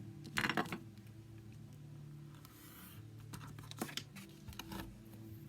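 Cardstock being handled on a craft table: a cluster of soft clicks and taps near the start, a short light scrape about halfway through as a tool is drawn along the paper, and a few more small clicks after.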